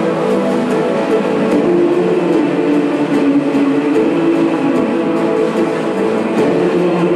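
Loud walkout music with a steady beat and a sustained, slowly bending low melody line.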